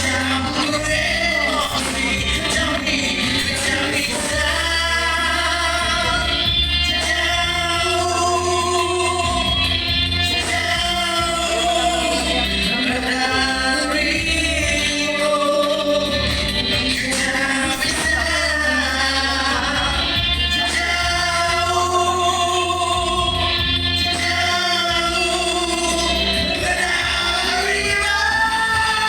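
Music: a song with singing voices holding long, wavering notes over a steady instrumental backing with a continuous bass.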